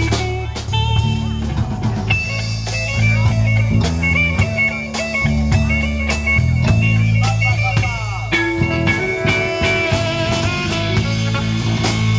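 Live rock band playing an instrumental passage with a steady beat: drum kit, bass guitar, electric guitar and saxophone.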